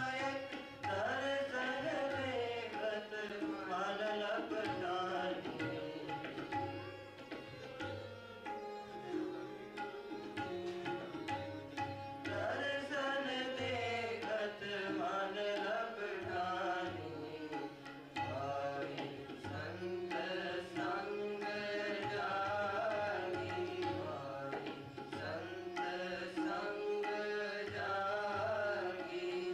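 Tabla keeping a steady rhythm under a gliding melodic line from a bowed, fretted string instrument, over a steady harmonium drone, in Raag Kedara.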